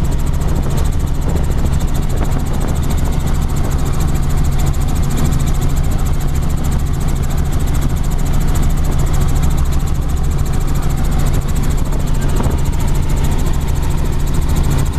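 Light helicopter in steady flight, heard from inside the cabin: a loud, unbroken, deep drone of engine and rotor that holds level throughout.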